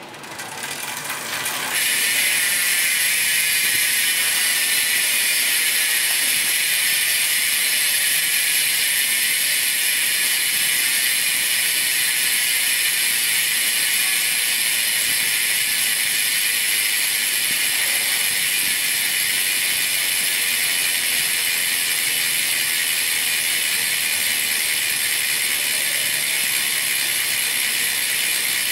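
Fulcrum Racing Speed XLR rear wheel's freehub ratchet buzzing as the wheel freewheels. The pawl clicks come so fast they merge into a steady high buzz, which sets in about two seconds in and then slowly drops in pitch as the wheel coasts down.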